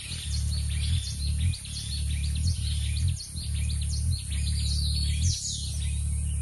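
Hummingbird wings humming low as it hovers, the hum breaking off briefly every second or so, with quick high-pitched chirps over it.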